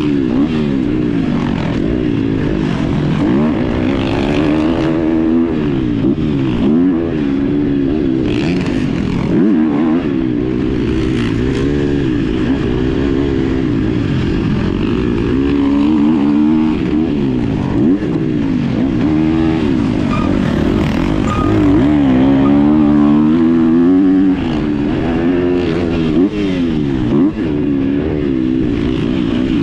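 Motorcycle engine heard from an on-board camera while lapping a circuit, its pitch rising and falling every second or two as the rider accelerates and backs off again and again.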